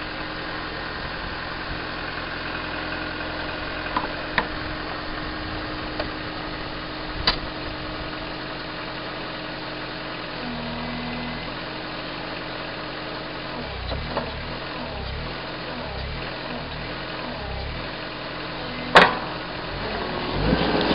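Caterpillar 257B skid-steer's diesel engine idling steadily, its pitch stepping down about halfway and a low pulsing throb coming in after that. A few sharp clicks and one loud knock near the end sound over it.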